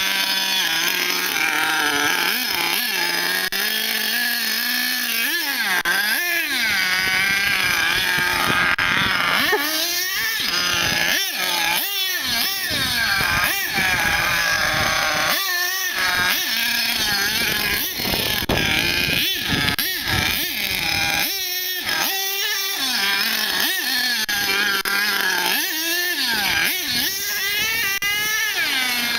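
Grave Digger HPI RC monster truck's .27 big-block two-stroke nitro engine, a high-pitched buzzing engine note. It revs up and down over and over as the throttle is blipped and eased off while the truck drives and turns.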